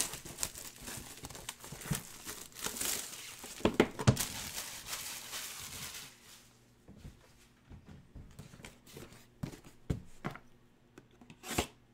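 Plastic shrink-wrap being torn and crinkled off a cardboard box for about six seconds, then quieter scattered knocks and rustles as the box is handled.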